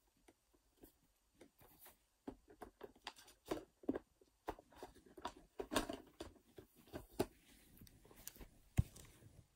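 Irregular rustling and soft knocks of handling noise as the recording phone is moved about, with cloth rustling against it; one sharper knock comes near the end.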